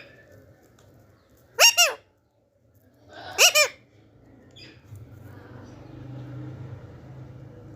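Alexandrine parakeet giving two loud, harsh calls about a second and a half apart, each a quick double note.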